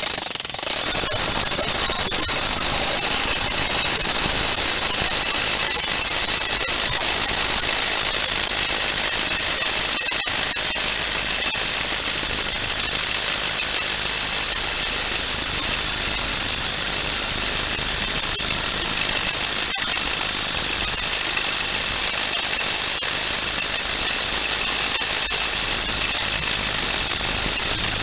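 SDS Max rotary hammer with a 1 1/8 inch bit running without a break, hammer-drilling into stone facing: a steady hammering rattle with a high whine over it.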